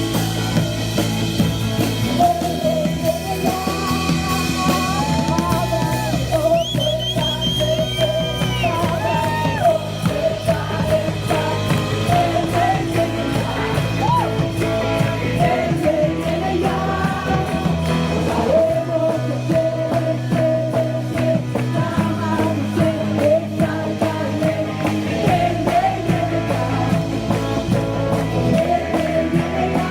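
Rock music with guitar and a sung melody; the bass chord changes every few seconds.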